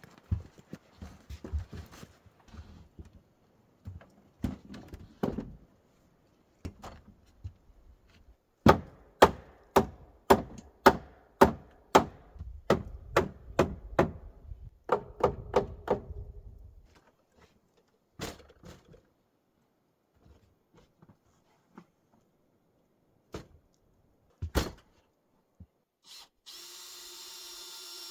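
Hammer blows on wood: scattered knocks, then a run of about a dozen strikes at roughly two a second, then a few more. Near the end a power drill starts and runs steadily.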